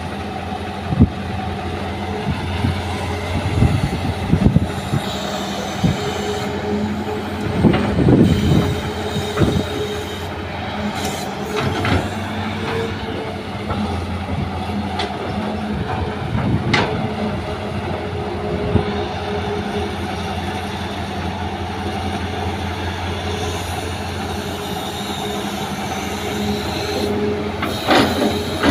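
Hitachi hydraulic excavator's diesel engine and hydraulics working steadily as it loads soil fill into a dump truck. Irregular thuds and metallic clanks come as the bucket works and earth drops into the truck's steel bed, heaviest about eight seconds in and again near the end.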